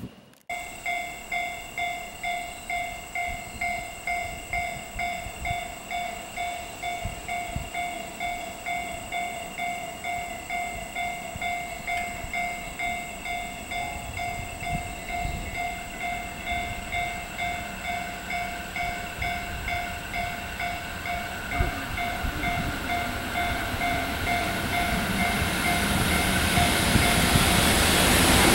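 Level-crossing warning bell dinging steadily, about twice a second. Over the last several seconds the rumble of an approaching freight train, hauled by a pair of EF64 electric locomotives, grows steadily louder.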